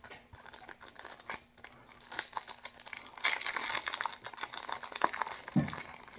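Foil trading-card booster pack crinkling as it is torn open and handled, a dense run of crackles that grows busier about two seconds in.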